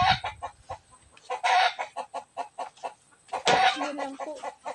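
Chickens clucking in quick, even runs of short notes, with two louder, harsher calls about a second and a half and three and a half seconds in.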